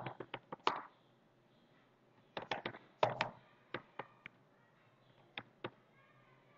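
Computer keyboard keystrokes typing in short bursts: a quick run of clicks at the start, another cluster two to three seconds in, then a few single taps.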